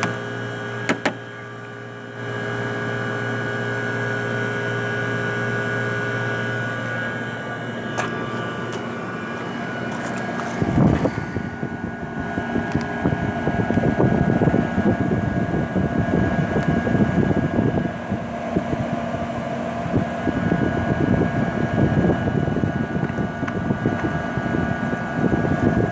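A 1981 Emerson Quiet Kool 18,000 BTU window air conditioner running, with a steady hum from the compressor and fan and a few clicks near the start. The owner calls it a very healthy-sounding unit with a full charge. About eleven seconds in there is a knock, then a rough, fluctuating rush of blown air on the microphone over the steady hum.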